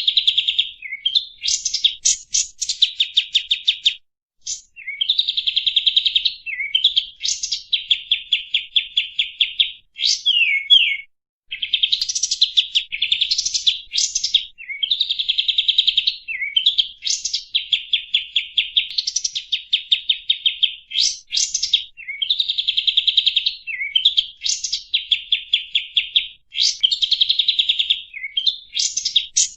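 Kapas tembak bulbul singing, played as a lure call: repeated phrases of rapid, high, buzzy trills, each a second or two long, linked by short sliding notes.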